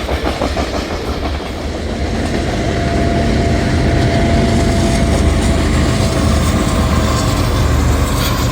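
Freight train running past, a heavy low rumble with the clickety-clack of wheels over the rail joints, and a faint steady whine in the middle.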